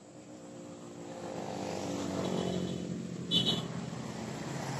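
A motor vehicle drives past: its engine grows louder over about two seconds, its pitch sliding down as it goes by, then begins to fade. A brief, sharp high chirp about three and a half seconds in is the loudest moment.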